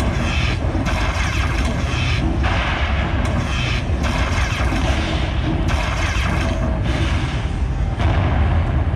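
Lightning Buffalo Link slot machine playing its win count-up after free spins completed: loud electronic celebration effects over heavy, continuous low booming, with brighter bursts of effects coming and going every second or so while the win meter climbs to $100.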